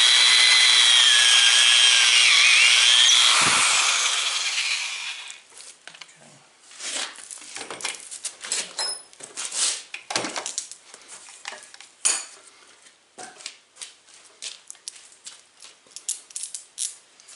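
Corded electric drill boring through a clamped wooden lap joint, its motor whine dipping under load for about five seconds before winding down. Scattered clicks, scrapes and light knocks follow as bolts and tools are handled at the joint.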